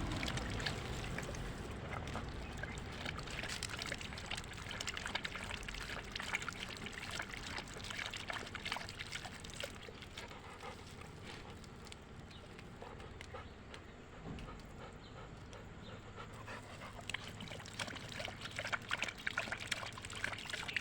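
Dog lapping up water: a fast, irregular run of small wet laps and splashes, dipping a little in the middle.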